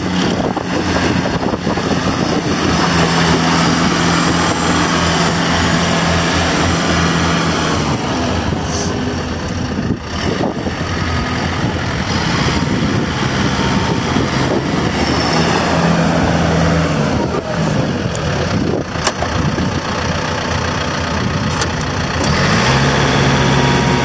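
John Deere 4600 compact tractor's diesel engine running as the tractor is driven about on gravel, its engine note shifting in pitch a few times, gliding up and down about three quarters of the way through, and settling to a steady note near the end.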